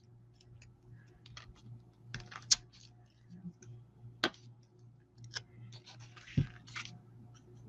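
Scattered light taps and clicks with a few short rustles of paper as cut card-stock pieces are handled and pressed onto a card, over a faint steady hum.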